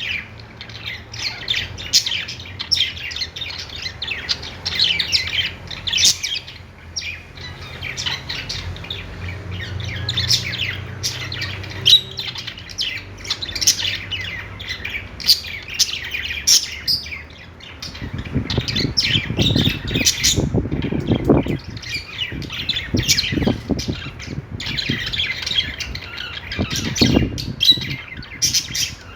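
Budgerigars chirping continuously in quick, overlapping high notes, with a low rough noise joining in over much of the second half.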